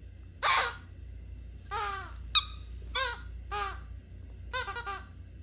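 A dog's squeaky toy squeaking as the dog bites and chews it: about six short squeaks with bending pitch, one sharp and brief a little past the middle, and a quick stuttering run of squeaks near the end.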